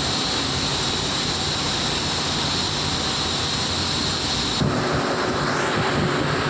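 Steady loud roar of a blast furnace cast house during iron tapping, with a high steady whine in it. About two-thirds of the way in the sound changes abruptly: the high hiss drops away and a lower hum comes forward.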